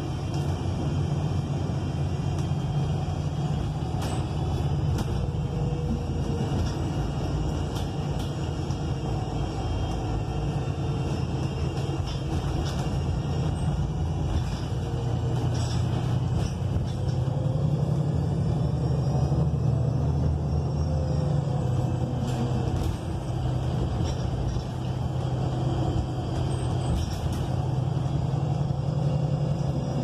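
Inside an ENC Axess city bus under way, its Cummins Westport L9N natural-gas engine and Voith automatic transmission running with a steady low drone. A faint whine rises and falls in pitch with road speed, with scattered light rattles.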